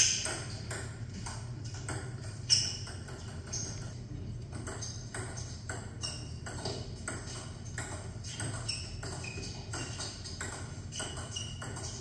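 Table tennis balls clicking off bats and tables in quick, uneven succession during rallies. Two sharper, louder hits come at the start and about two and a half seconds in.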